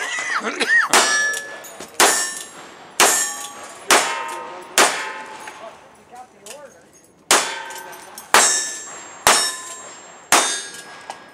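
Black-powder revolver fired one-handed about nine times, roughly one shot a second, with a pause of about two and a half seconds in the middle. Each shot is followed by the clang of a steel target ringing.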